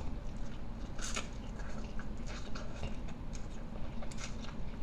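Close-up eating sounds: a person chewing spicy instant noodles, with scattered short wet mouth clicks and smacks.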